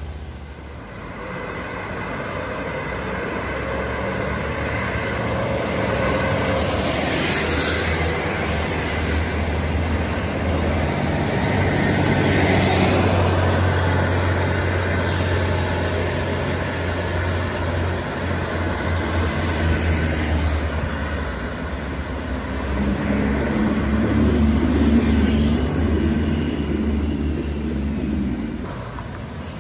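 Road traffic passing close by: the low diesel drone of a coach bus and other vehicles, building to its loudest about halfway through as the bus goes past. A second swell comes near the end as a motorcycle and a car approach.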